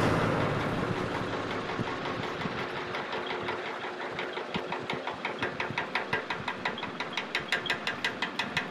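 Paper banknotes flicked one by one as they are counted by hand: a rapid, even run of crisp clicks, several a second, growing louder toward the end.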